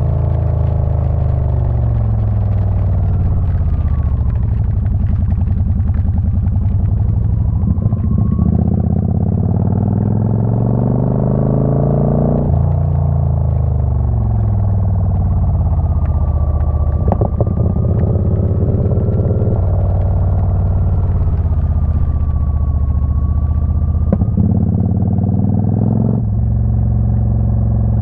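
Motorcycle engine running on the move. Its pitch repeatedly falls and climbs as the throttle is rolled off and opened, with several sudden jumps in pitch at gear changes.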